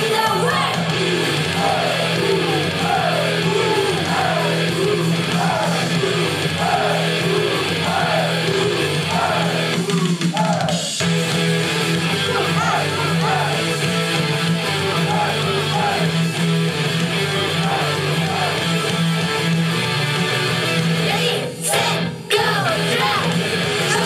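Loud amplified music with a woman singing live into a handheld microphone. The music drops out for a moment near the end.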